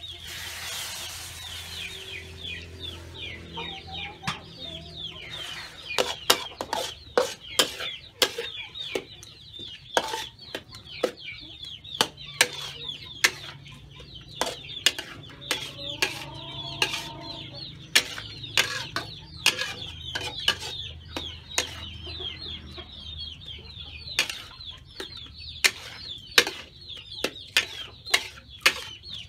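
Metal spatula clanking and scraping against a steel wok as egg and vegetables are stir-fried, many sharp strikes in quick succession from a few seconds in. A steady chorus of high, quick peeping chirps runs underneath.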